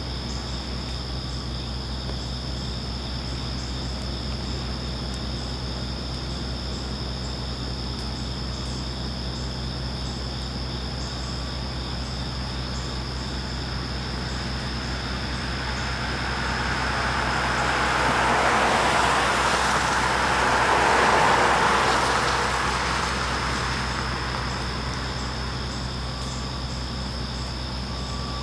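A car passing by on a wet street: the hiss of its tyres on the wet asphalt swells over several seconds, is loudest a little past two-thirds of the way in, then fades away.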